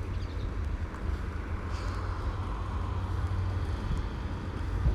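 A Hitachi Class 802 bi-mode train coming up the line: a steady low engine rumble, with a hiss from the wheels that swells about two seconds in.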